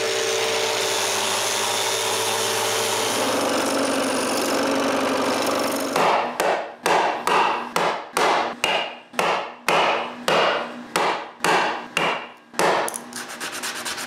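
A steady motor hum, then a wood chisel struck in quick blows, about three a second, chopping CNC-cut plywood parts free of their sheet. Near the end, the rough rubbing of hand sanding.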